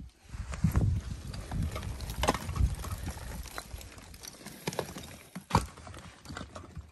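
Chunks of chalk being pried off a crumbling chalk cliff face by gloved hands, breaking away and clattering down the rock in scattered clicks and knocks.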